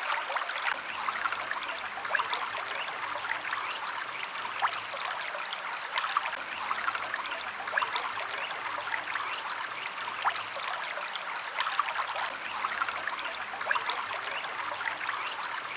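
A stream of water flowing steadily, with continuous trickling and small splashes.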